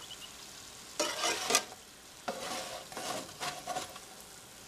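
Hot oil sizzling in a frying pan, with a louder burst of sizzle lasting about half a second, about a second in, and weaker flare-ups after it.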